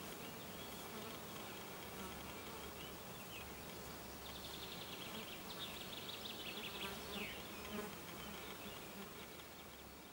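Flying insects buzzing in the open air, with a quick high trilling call in the middle; the sound fades near the end.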